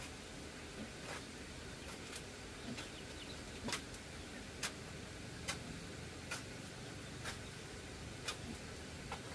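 Metal shovel blade striking and scraping into dry, hard-packed earth, a short sharp stroke about once a second over a steady low hiss.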